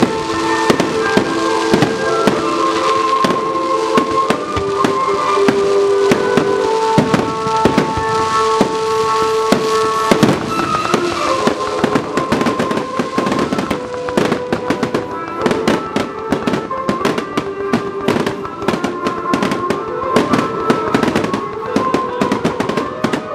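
Fireworks going off in a rapid run of bangs and crackles, getting denser in the second half, over background music with long held notes.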